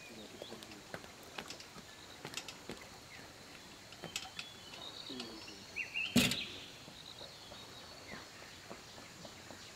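Quiet outdoor ambience with scattered faint clicks and one sharp knock about six seconds in.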